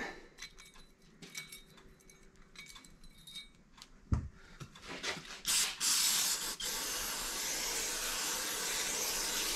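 Aerosol parts cleaner spraying in a steady hiss for about four seconds, starting a little past halfway. Before it come light clicks of metal parts being handled, a small knock, and a rag rubbing on the parts.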